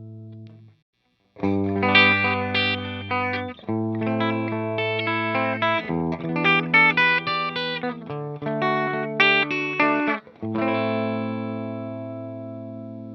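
Gibson Les Paul Special Doublecut electric guitar played through a Mesa/Boogie Mark Five:25 tube amp. A ringing chord fades out, and after a brief gap comes a run of picked notes and chords, ending on a chord left to ring and slowly fade.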